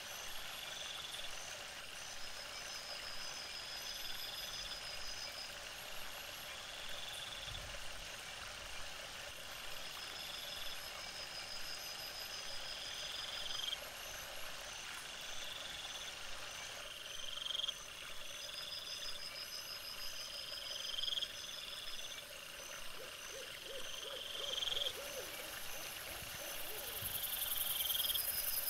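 Night-time animal calls, sped up fourfold: a short call that rises at its end repeats about every two seconds over fainter trilling, with a rise in high hiss near the end.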